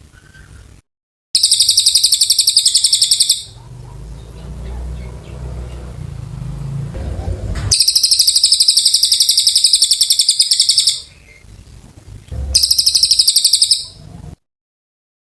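Cililin bird singing in long, very rapid high-pitched trills: three bursts of about two, three and one and a half seconds, with a low rumble between the first two.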